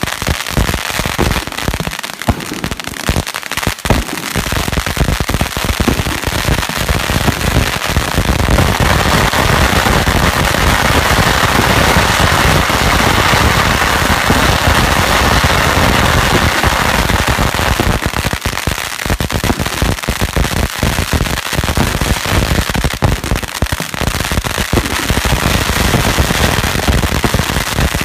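Long strings of red firecrackers going off together: a rapid, unbroken rattle of sharp bangs. From about eight to eighteen seconds in, the bangs run together into a dense, continuous crackle, then thin again to more separate bangs.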